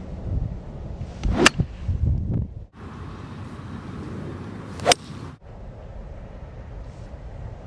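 Golf iron strikes: a Nike VR Pro Combo iron hitting the ball twice, each a single sharp crack, about three and a half seconds apart. Low wind rumble is on the microphone throughout.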